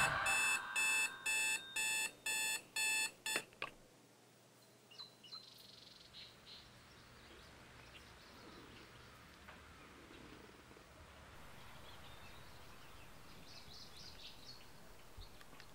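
Digital alarm clock beeping, about two beeps a second, switched off about three and a half seconds in. After that only faint small rustles are heard.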